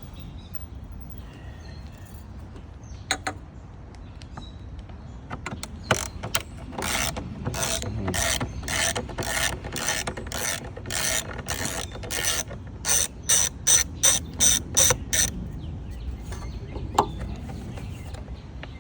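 A hand ratchet clicking as it backs out the screws on an air filter housing: a long run of sharp, even clicks, about two a second and then quicker before it stops.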